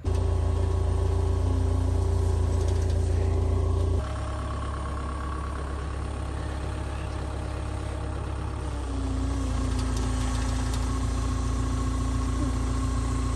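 An engine running steadily, its sound shifting abruptly about four and nine seconds in.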